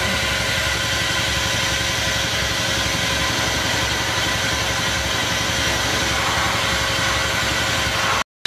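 Vacuum membrane press running with a steady machine hum that holds several constant tones. The sound cuts out abruptly for a moment near the end.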